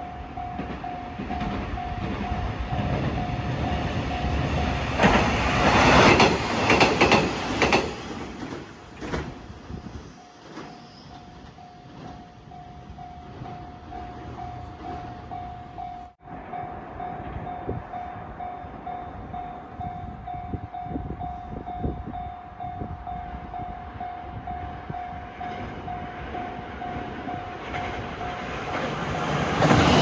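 Level-crossing warning bell dinging steadily. About five seconds in, a KiHa 120 diesel railcar passes loudly for about three seconds and the bell stops briefly. The bell then rings again, and near the end a second train arrives loudly.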